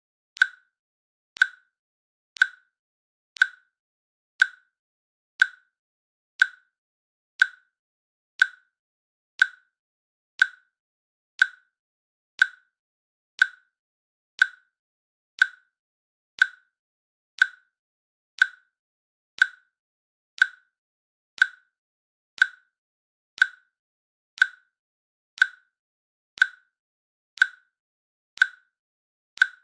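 Countdown timer's click sound effect, one short sharp click every second, with silence between the clicks.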